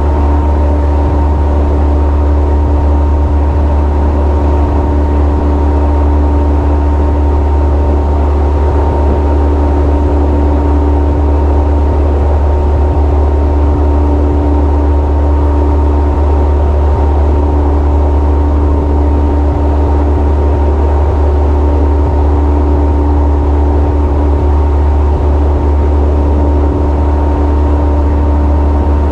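Go-fast powerboat's engines running steadily at speed: a constant drone with a heavy low rumble and several steady tones, mixed with the rush of hull and spray on the water.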